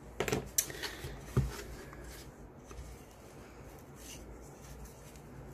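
A few sharp clicks and taps in the first second and a half as jewelry pliers are set down and a small wooden cigar box is picked up on a cutting mat, then soft rubbing and scraping as the box is handled and worked by hand.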